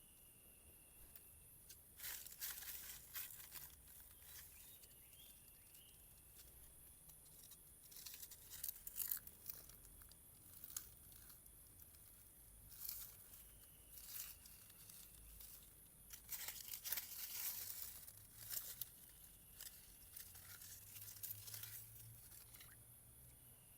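Irregular bursts of rustling and crinkling, with faint short insect chirps in between.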